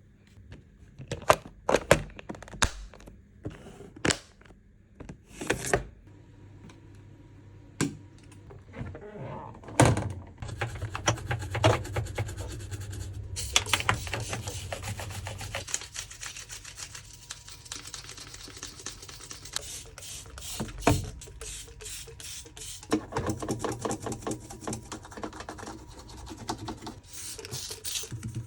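Hand-handling sounds during washing-machine cleaning. First come separate knocks and clicks of objects being picked up and set down, then, from about a third of the way in, a long stretch of dense, rapid clicking and rustling.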